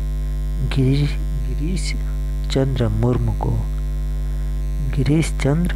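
Loud, steady electrical mains hum, a low buzz with several evenly spaced overtones, under a voice speaking in short phrases.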